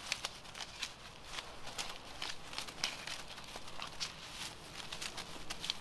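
Footsteps and rustling in grass and dry leaves, an irregular run of soft crackles and light steps several times a second.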